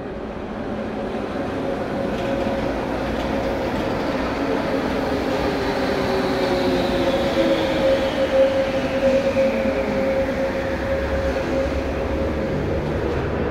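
Alstom MP-68 R93 rubber-tyred metro train pulling into the station and slowing. It grows louder, with a steady tone and a whine that falls in pitch as it decelerates, over a running rumble.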